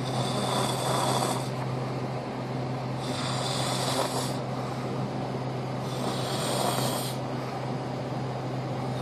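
A sleeping man snoring: three snores about three seconds apart, over a steady low hum.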